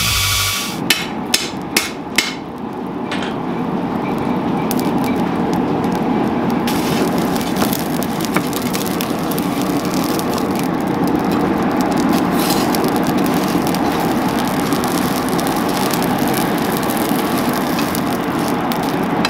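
Charcoal fire in a brick furnace burning hard, a steady rushing noise with crackling sparks. A few sharp knocks come in the first two seconds.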